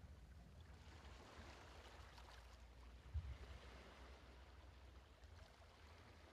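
Near silence: room tone with a faint steady hiss and a low hum, and one soft thump about three seconds in.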